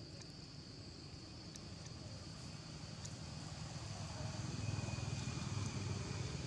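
Low rumble of a vehicle that grows louder from about halfway, over a steady high drone of insects.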